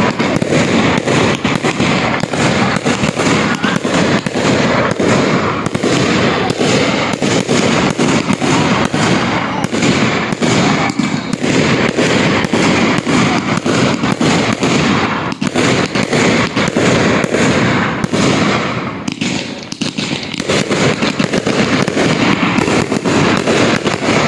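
Aerial fireworks going off in a dense, near-continuous barrage of bangs and crackle. The barrage eases briefly about 19 seconds in, then picks up again.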